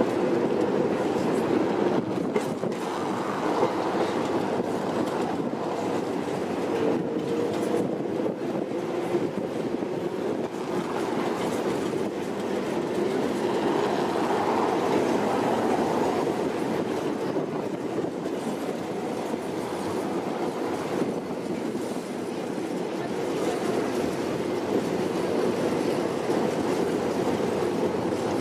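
Excursion tram running along the street, heard from inside the car: a steady rumble of steel wheels on the rails, with a few sharp clacks over rail joints in the first several seconds.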